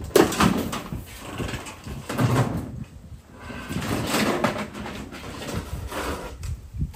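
Wood creaking and scraping in irregular surges, typical of siding boards being pried off a wall.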